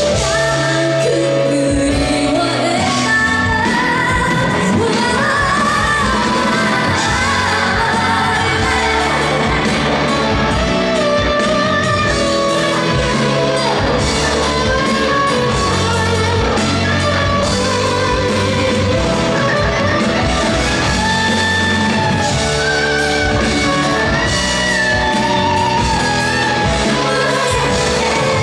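Live pop music: a female singer singing over a full band, amplified in a large hall.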